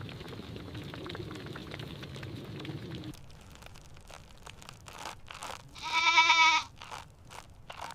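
A goat gives one loud, wavering bleat about six seconds in, lasting about half a second, among scattered crunching clicks. Before that, a steady rushing noise cuts off abruptly about three seconds in.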